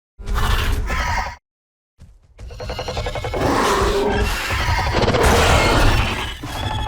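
Baryonyx dinosaur sound effect: a short growl lasting about a second, then after a pause a longer growling roar. The roar builds for about four seconds and eases off near the end.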